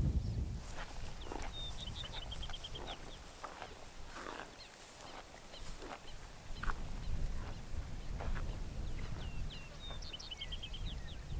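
A songbird singing twice, about eight seconds apart: each song is a few sharp high notes then a fast trill. A low rumble runs underneath.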